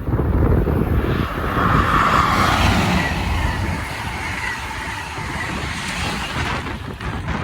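A train passing along the tracks: a rushing sound that builds about a second in and dies away near the end, over low wind buffeting on the microphone.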